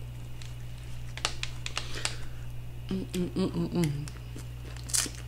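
Close-miked handling of a soft lobster taco: a run of small clicks and crackles as the tortilla is picked up and folded, a brief hummed 'mm', then a bite near the end.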